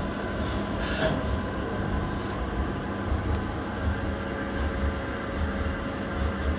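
Mikron VCE 750 vertical machining center running a program under coolant spray: a steady machine hum over a low, pulsing rumble, with a brief louder hiss about a second in.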